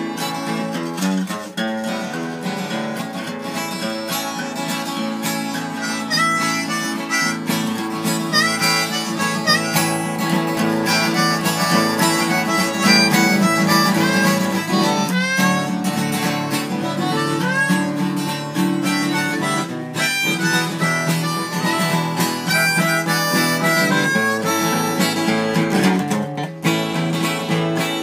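Blues harmonica playing continuously, with frequent bent, sliding notes, over an acoustic guitar.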